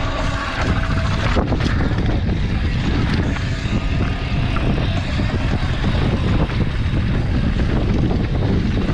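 A trail mountain bike rolling fast down a rocky dirt singletrack: tyres on dirt and stones under a heavy rumble of wind buffeting the microphone, with a few sharp knocks about a second and a half in as the bike hits rocks.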